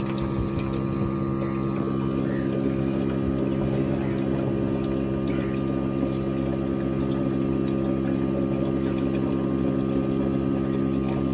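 Portable 12 V battery-powered milking machine's vacuum pump running with a steady, even hum.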